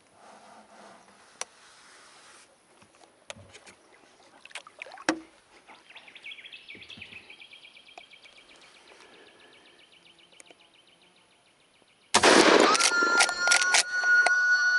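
Small knocks and clicks from a shotgun being handled and raised in a kayak, with a faint high buzzing in the middle. About twelve seconds in comes a sudden loud shot from the lever-action 12-gauge shotgun, and steady music tones come in over it.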